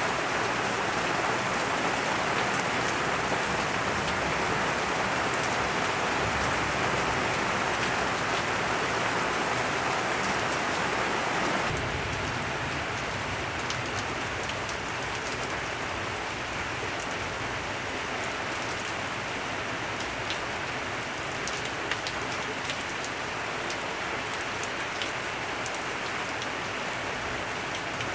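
Steady rain falling. About twelve seconds in it gets a little quieter, and sharp ticks of single drops start to stand out.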